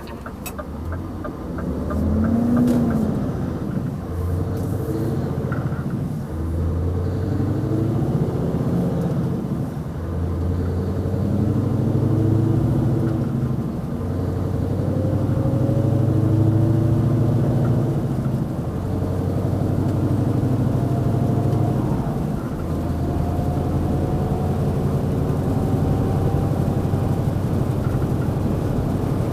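Scania 770S truck's 16-litre V8 diesel pulling under way on its stock exhaust, the engine note rising slowly and dropping back several times as it goes up through the gears.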